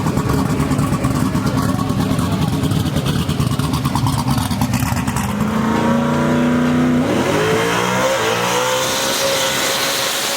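Drag race car engine running rough and choppy, then settling into a steady tone that climbs in pitch from about seven seconds in and holds high near the end as the car revs and accelerates.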